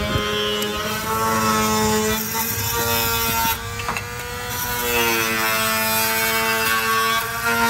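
Power tool cutting off door shims flush with the frame: a steady buzzing whine whose pitch sags and recovers as the blade bites, with a brief dip about three and a half seconds in.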